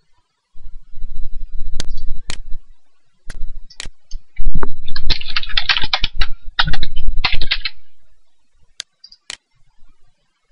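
Typing on a computer keyboard in quick runs through the middle, with separate sharp mouse clicks before and after.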